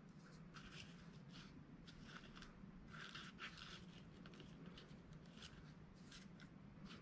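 Near silence, with faint, irregular soft rustles of fingertips handling and pressing small quilled paper pieces against each other on a tabletop.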